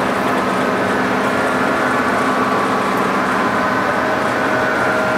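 TOS SU125 heavy engine lathe running with its power compound feeding at a fairly slow speed: a steady mechanical hum with several held tones, and a higher tone joining about four seconds in.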